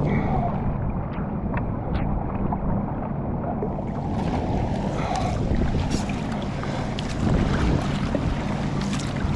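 Sea kayak paddling in calm water: paddle strokes splashing and water running along the hull, over steady wind rumble on the microphone. The watery hiss grows fuller about four seconds in.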